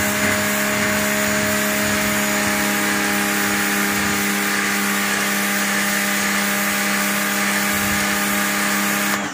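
Takara Europa 130-bar high-pressure washer running steadily under load, its motor humming at a constant pitch under the hiss of the water jet blasting algae off concrete paving. It cuts off at the very end.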